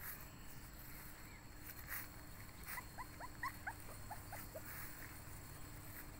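Month-old Bắc Hà puppy whimpering: a quick run of about ten short, high squeaks, each dropping in pitch, starting a little before halfway through.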